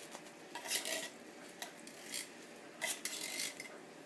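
Metal utensil scraping and clinking against a can and a dish in a few short, faint strokes: canned spaghetti and meatballs being spooned out into a bowl.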